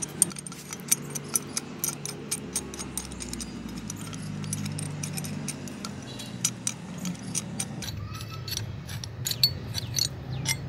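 Old rusty Ridgid pipe wrench worked by hand: its steel hook jaw and knurled adjusting nut give quick, irregular metal clicks and clinks as the jaw is wound out, with a louder cluster of clicks near the end. A steady low hum runs underneath.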